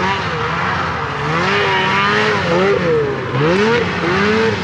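Snowmobile engine running and revving, its pitch repeatedly rising and falling as the throttle is opened and eased off.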